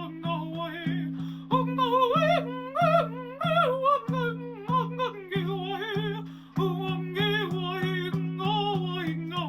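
A woman's wordless improvised singing with a wavering melody and vibrato, over a steady low drone pulsed by regular plucked-string strokes, about three to four a second. The music dips briefly a little after the middle, then comes back in strongly.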